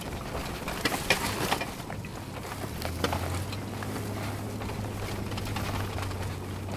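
Car driving over rutted sand, heard from inside the cabin: a steady engine and road drone with a few sharp knocks and rattles in the first three seconds. Then a low steady hum sets in about three seconds in.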